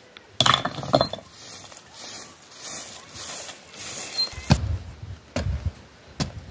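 A grass broom sweeping dry, stony earth in short scratchy strokes. About four seconds in, it gives way to a long-handled hoe striking hard ground three times, about once a second, each blow a sharp knock with a low thud.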